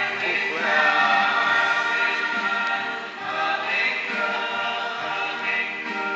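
A mixed choir of men and women singing a hymn together, with long held notes.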